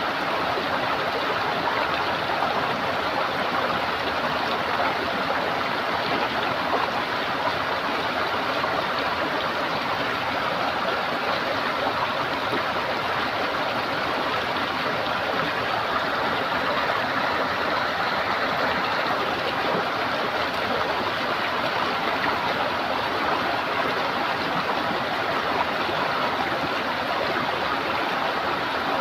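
Running water of a stream, gurgling steadily.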